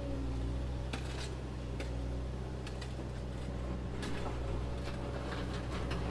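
A steady low hum with a few faint, scattered ticks; no music or speech.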